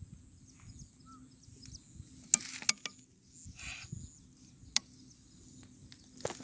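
Hands working dry rice-bran and wheat-flour bait in a plastic bag: soft rustling of the powder and bag, broken by a few sharp clicks, the loudest two about two and a half seconds in.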